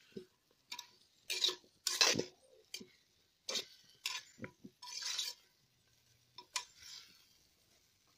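Steel spoon stirring chopped raw mango in a clay pot: irregular scrapes and clinks of the spoon against the pot.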